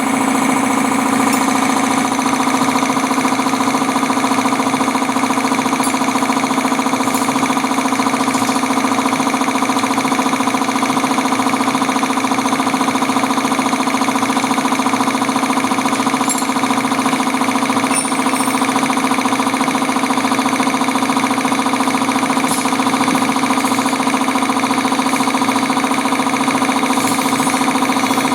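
Air compressor running steadily: an even machine hum with a strong low tone and a stack of steady overtones that holds unchanged throughout.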